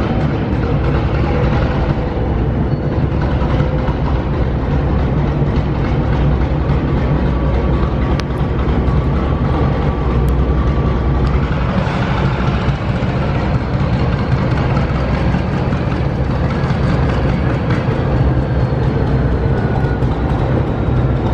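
Diesel locomotive engine running steadily as the locomotive moves. The engine sounds strange and faltering, a sign that it is losing power.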